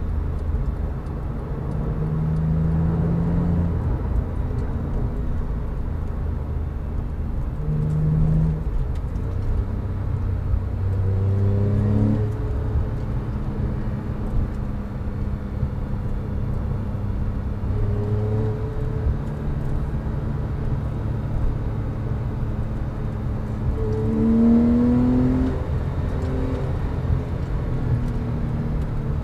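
Porsche 911 997.2 Carrera 4S 3.8-litre flat-six with sport exhaust, heard from inside the cabin at highway speed over steady tyre and road noise. Its engine note rises twice as the car accelerates, once near the middle and again towards the end.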